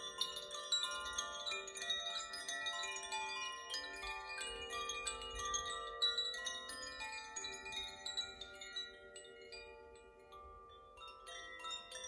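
Koshi and Zaphir wind chimes swung by hand: a dense shimmer of many overlapping ringing tones from the tuned rods being struck by the clappers inside. The strikes thin out and the ringing fades about nine seconds in, then fresh strikes start again just before the end.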